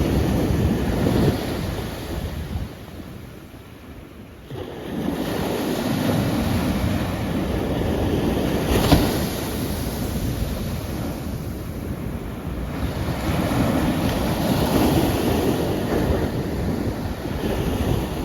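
Ocean surf: waves breaking and washing up the shore, the roar swelling and ebbing, with a lull about three seconds in that ends when the next wave comes in, and a brief sharp crash about nine seconds in.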